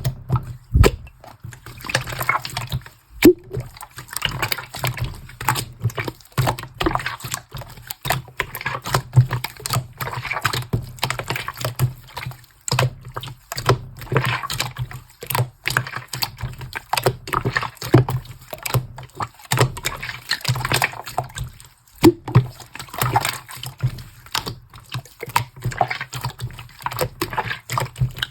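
Pink slime being squished, pressed and stretched by hand, making a continuous run of irregular wet clicks, pops and squelches.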